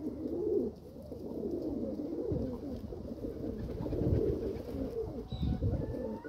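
Domestic pigeons cooing over and over in low, rolling coos, with a few low rumbles underneath.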